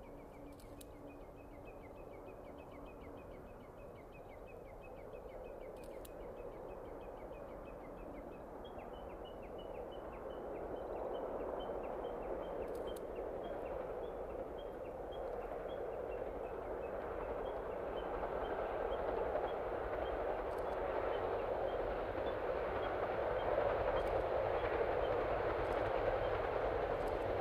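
Passenger train approaching across open country, its rumble growing steadily louder throughout as it draws nearer.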